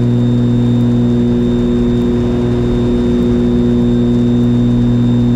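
Steady drone of the Piper Aerostar 700's twin piston engines and propellers heard inside the cockpit in flight, a deep even hum with a faint high steady tone above it.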